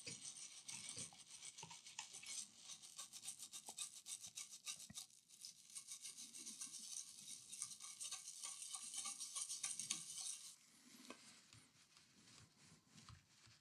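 Small bristle brush scrubbing a laptop motherboard's chip and pins in clean water with rapid back-and-forth strokes, washing away sugary liquid-damage residue. The scrubbing stops about ten seconds in, leaving fainter rustling.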